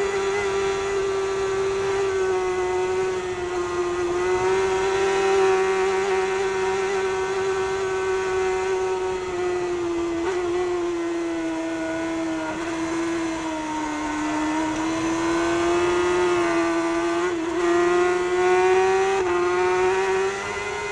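A Kawasaki superbike's inline-four engine running hard at high revs, heard from the bike itself with wind rushing over the microphone. The engine note holds high, sags slowly to its lowest about two-thirds through and climbs again, with a few brief breaks where the rider shifts gear.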